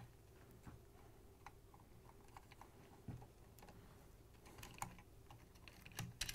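Faint, scattered clicks and ticks of a Phillips screwdriver turning out the screws that hold the speed control board in a KitchenAid stand mixer, with a few sharper clicks near the end.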